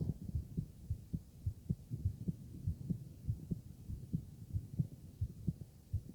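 Human heartbeat heard through a stethoscope: low thuds repeating in a steady rhythm.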